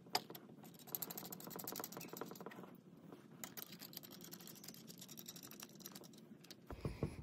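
Steel ring-gear bolts being spun in by hand into the threaded holes of a Dana 44 ring gear, giving a faint, fast metallic ticking of thread on thread. There are two spells, one for each of two bolts.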